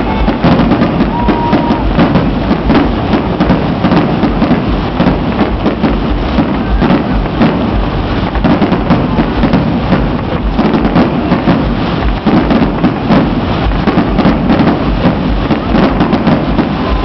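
Fireworks going off in a dense barrage: rapid bangs and crackles run together into a continuous rattle over heavy low booms, with no let-up.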